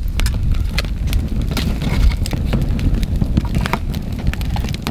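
Wood campfire crackling, with frequent sharp pops over a steady low rumble, as burning split logs are shifted with fire tongs.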